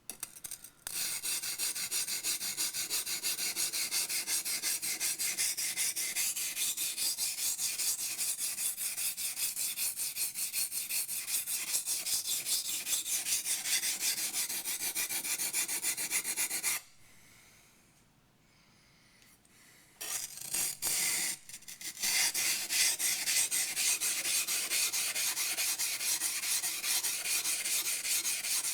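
Yanagi knife blade being ground on a waterstone: a fast, even back-and-forth scraping of steel on wet stone. The strokes stop for about three seconds past the middle, restart haltingly, then run steadily again.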